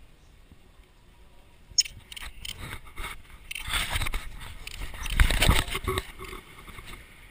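Handling noise on a small action camera: a sharp click about two seconds in, then scraping, rubbing and knocking against the camera's housing for about four seconds, loudest near the end, as the camera is grabbed and jostled.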